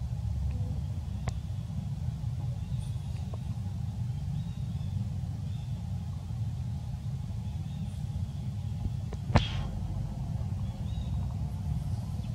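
Steady low rumble with faint high chirps now and then, and a single sharp click about nine seconds in.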